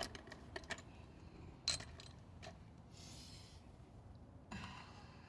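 Light clicks and taps of small car engine parts being handled and pushed into place, the sharpest about two seconds in, with a couple of brief rustles.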